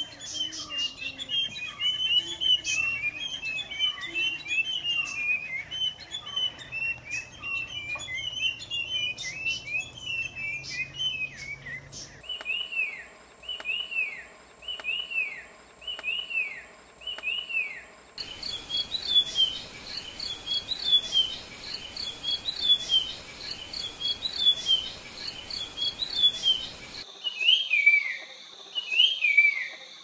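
Puff-throated babbler (Pellorneum ruficeps) singing: clear whistled notes, each sliding down in pitch, at times about one a second and at times crowded and overlapping. For a stretch partway through, a steady high-pitched whine runs behind the notes.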